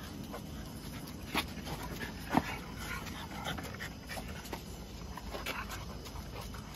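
French bulldog puppies making small dog sounds as they scamper about, with a few short sharp clicks or knocks; the loudest comes about two and a half seconds in.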